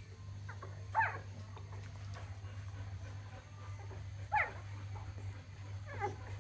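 Week-old Golden Retriever puppies squeaking while nursing: three short, high squeaks, each falling in pitch, about a second in, past four seconds and near the end.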